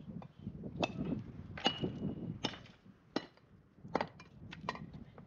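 Stones knocking and clinking against each other as they are picked up and set onto a dry-stone wall: about eight sharp knocks at uneven gaps, one ringing briefly.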